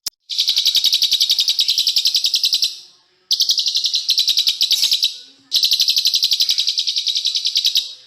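Small songbird singing rapid, tightly packed trills of high repeated notes, about ten a second, in three long bursts of two to two and a half seconds each, separated by short pauses.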